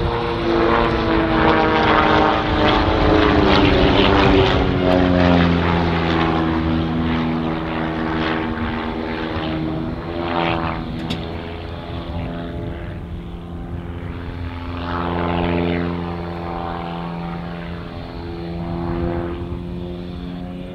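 Piston engine and propeller of an aerobatic plane flying display manoeuvres overhead. The engine note is loudest in the first few seconds and falls in pitch, then holds steadier and fainter, swelling again about two-thirds through and near the end.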